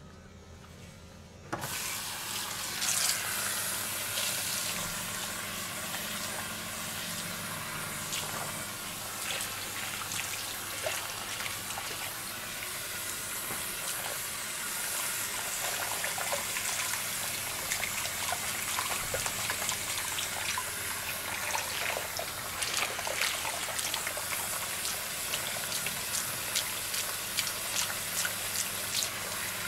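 Steady rush of running water with scattered small splashes and clicks, starting suddenly about a second and a half in.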